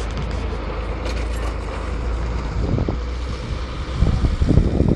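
Low, steady rumble of a dump truck's engine as it drives off over a gravel quarry road, with wind buffeting the microphone, heaviest in the last second.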